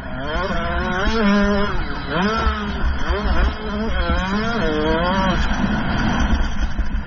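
Dirt bike engine revving hard and easing off again and again as it is ridden round a motocross track, its pitch rising and falling several times before settling lower near the end, over a constant low rumble.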